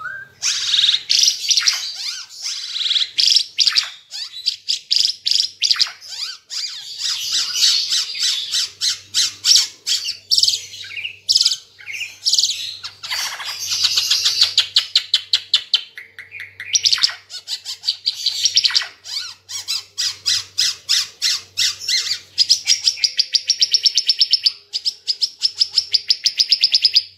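Ara Timor songbird in full, loud song. It is a fast, continuous stream of sharp, high chattering notes and rapid trills, with only brief pauses, and the trills grow especially fast and even near the end.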